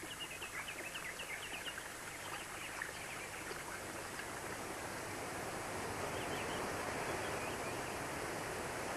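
Birds chirping over a steady rush of falling fountain water; the chirping is busiest in the first couple of seconds and the water grows louder in the second half.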